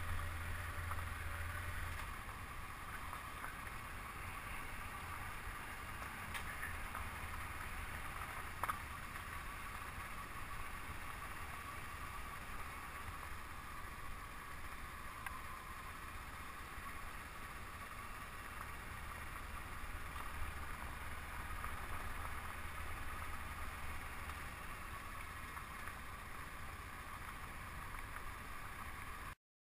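Honda CB500X motorcycle's parallel-twin engine running steadily while riding a gravel road, with wind noise on the microphone and one sharp tick about nine seconds in. The sound cuts off suddenly just before the end.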